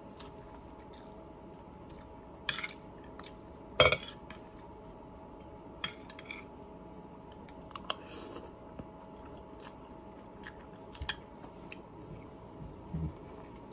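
A fork clinking and scraping on a ceramic plate while someone eats and chews, in scattered short clicks, the loudest a sharp clink about four seconds in. A faint steady hum lies underneath.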